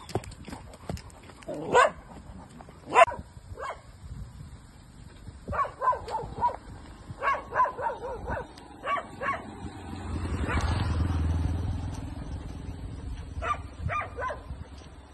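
Dogs barking: two loud single barks about two and three seconds in, then several bursts of quick barks. In the middle a low rumble swells and fades.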